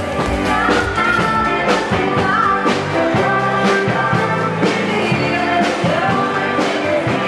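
Live band playing a rock-style song: a singer over drums and guitar.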